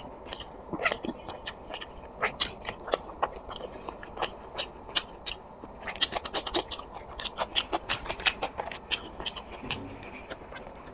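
A person chewing food close to the microphone, with irregular wet mouth clicks and smacks that come thickest in the middle and thin out near the end.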